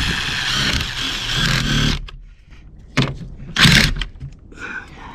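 Ryobi cordless impact driver running for about two seconds, driving a self-tapping screw through a solar panel mounting bracket into the van's roof sheet metal, then a short second burst. The fine-threaded screw strips out as soon as it reaches the sheet metal.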